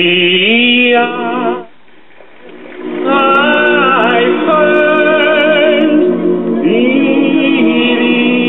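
A vinyl LP of vocal music, with sustained sung notes, playing on an AudioPlus AV-15TX classroom record player through its own small IC amplifier. It is picked up by a newly fitted Pfanstiehl P226 cartridge. The singing breaks off for about a second shortly before two seconds in, then carries on.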